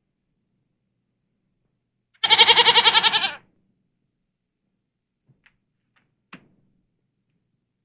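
A sheep bleats once, about two seconds in: a single wavering call lasting just over a second. A few faint clicks and a small knock follow later.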